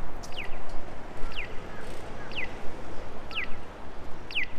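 Electronic bird-like chirps of a Japanese pedestrian crossing signal, one short falling chirp about every second, the sign that the walk light is green. Steady city street noise runs beneath.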